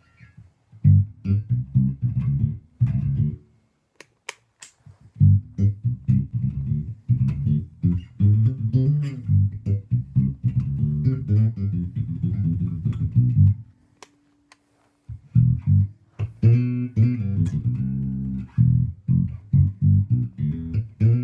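Electric bass guitar played solo: a rhythmic line of plucked notes. It stops twice, once with a few sharp clicks and once with a single higher note left ringing.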